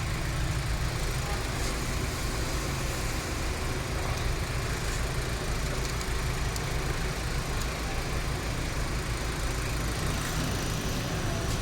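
An engine idling steadily with an even low rumble.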